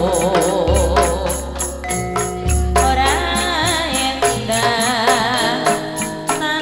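Javanese tayub music: a woman sings with a wide, wavering vibrato over gamelan accompaniment, with held metallic tones, low sustained gong-like tones and a steady beat.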